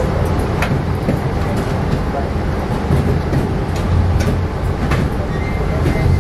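Running noise heard inside a 25G passenger coach on the move: a steady, loud rumble of steel wheels on rail, with a few sharp clicks from the track.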